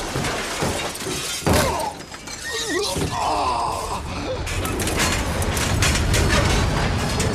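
Action-film sound effects: a heavy thud about a second and a half in, a man's short pained groan, then a run of crashing and shattering glass and debris, all over a continuous low Harrier jet rumble.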